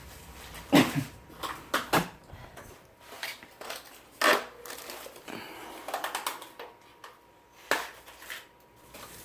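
Irregular clicks and knocks with some rustling, as small bicycle parts and their packaging are handled during assembly.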